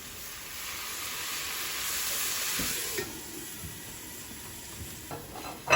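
Water squirted onto a hot Blackstone griddle top flashing to steam: a hiss that swells for about two seconds and dies away about three seconds in, leaving a lower steady sizzle.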